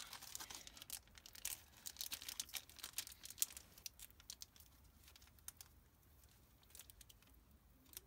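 Foil wrapper of a Pokémon trading-card booster pack crinkling and tearing as it is worked open by hand. The crackling is dense for the first few seconds and then thins to scattered crinkles.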